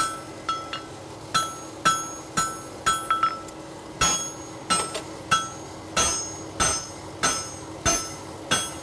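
Hammer blows on a hot steel horseshoe on an anvil, about two a second, each with a short metallic ring, as the farrier and his striker draw the shoe out with overlapping flat blows.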